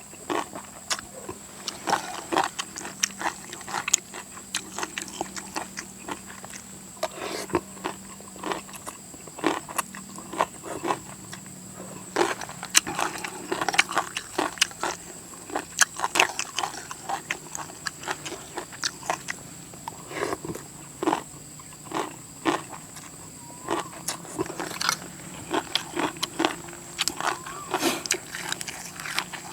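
A person eating khao pun rice noodles in coconut curry: chewing, with many short wet smacks and slurps at an irregular pace.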